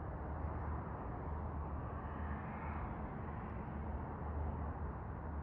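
Steady low vehicle rumble with a noisy rush, no distinct events.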